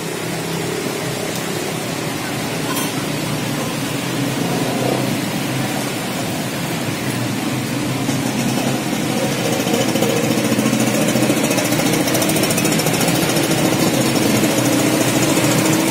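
Traffic driving through a flooded street: motorcycle and small-van engines running close by with a rough, rattling note, over a steady hiss of water. It grows louder about halfway through.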